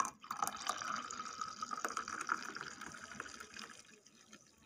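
Milk poured in a steady stream into a glass of rose syrup, splashing and bubbling as the glass fills; the pour dies away about four seconds in.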